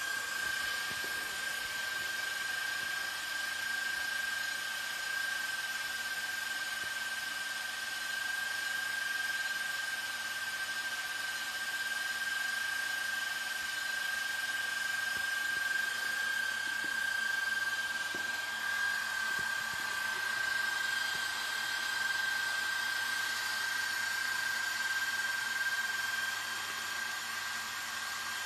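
Small electric cooling fan on the powered-up RC truck running with a steady high-pitched whine over a soft hiss.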